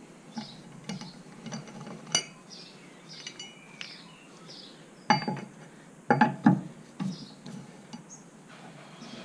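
Metallic clinks and knocks from a four-way wheel brace on the car's wheel nuts and a removed wheel nut set down on the concrete floor: a few light clicks at first, then two loud clusters of knocks past the middle.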